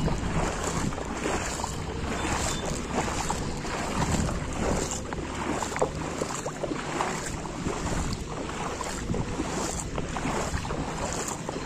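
Floodwater sloshing and splashing in irregular strokes as someone wades through a flooded street, with wind buffeting the microphone.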